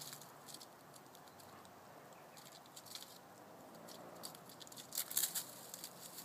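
A cat's claws scratching and scrabbling on tree bark as it climbs down the trunk, with a louder cluster of scratching and rustling about five seconds in as it reaches the brush at the foot of the tree.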